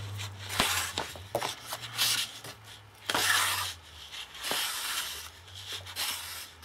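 Red embroidery thread being drawn through a pierced hole in white cardstock as the card is handled: a run of short scratchy rustles about a second apart, with a few light clicks.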